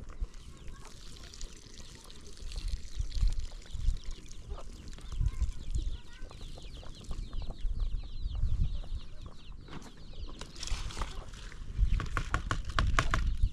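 Chickens clucking and chirping, with irregular low thumps and a quick run of clicks near the end.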